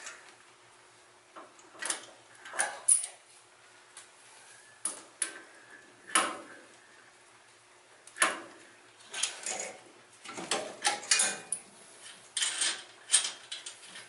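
Irregular metallic clinks, knocks and short scrapes of hand tools working on a truck's front steering knuckle and hub during disassembly, coming more thickly in the second half.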